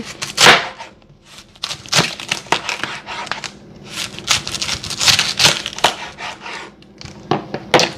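Chef's knife slicing through a head of green cabbage on a plastic cutting board: an irregular string of crisp, crunching cuts, the blade knocking on the board at the end of strokes.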